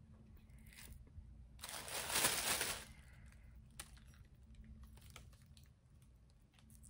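Rubbery casting mold being peeled and torn off a cast hand with the fingers, heard as small clicks and soft crackles. About two seconds in there is a louder rustle lasting about a second.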